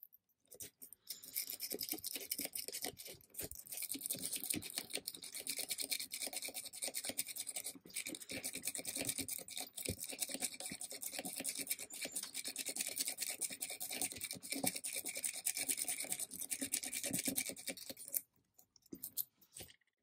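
A metal lock pick raked back and forth against the pin tumblers in the keyway of a Master Lock No. 3 padlock, a fast scratchy rasp of many small strokes. It stops shortly before the end, with a few last short scrapes.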